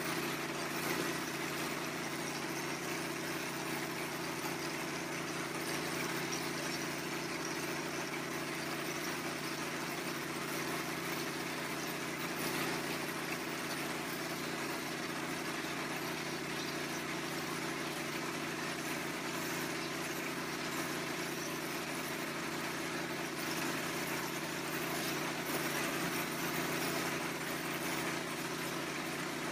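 V-Tex 400 stucco sprayer running steadily while color coat is sprayed from the gun: a constant machine hum under an even hiss of air and material.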